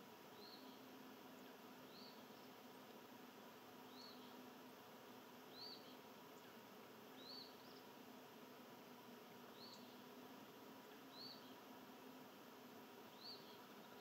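Faint outdoor ambience with a short, high chip-like call repeated about every two seconds from a small wild animal, over a steady low hum.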